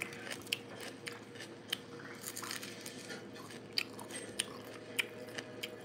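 A person chewing a mouthful of fish and rice with the mouth closed, making soft, irregular clicks and small crunches.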